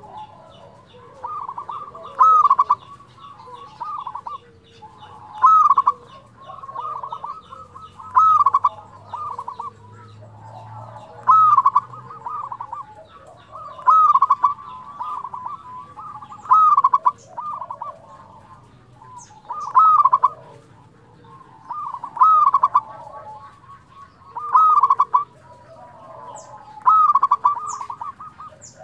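Zebra dove (perkutut) singing its flute-like cooing song over and over. It gives about ten phrases, one every two and a half to three seconds, each a quick run of notes with one loud ringing coo.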